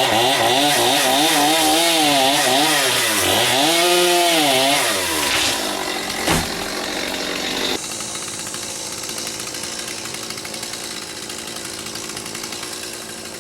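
Chainsaw running at high revs, its pitch wavering up and down under load as it cuts wood. About five seconds in the revs drop away, and a sharp knock follows. After that the sound carries on as a quieter steady running.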